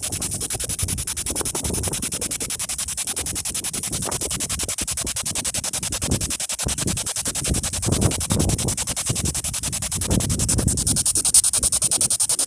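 P-SB7 spirit box sweeping through radio stations: a rapid, choppy stream of static and broadcast fragments. Wind gusts buffet the microphone.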